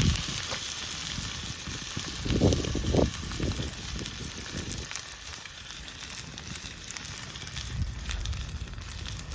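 Steaks sizzling in a hot cast iron frying pan over a campfire: a steady hiss dotted with fine crackles, with the fire crackling too. Two brief low thumps come about two and a half and three seconds in.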